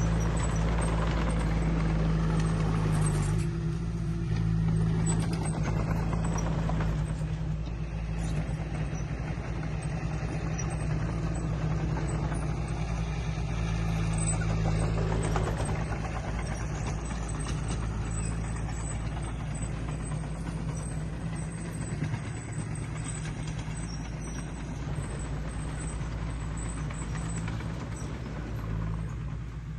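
Diesel engine of heavy earthmoving machinery running steadily under load, its low engine note shifting slightly now and then.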